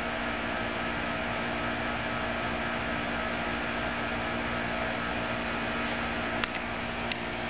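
Steady mechanical hum with a few fixed tones, unchanging throughout, and two short sharp clicks near the end.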